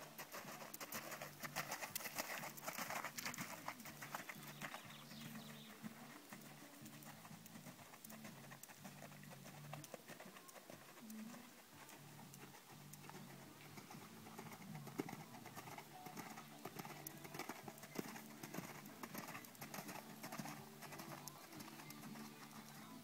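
A horse's hoofbeats on a sand arena as it trots, heard as a faint run of soft, scattered clicks that are busiest in the first few seconds.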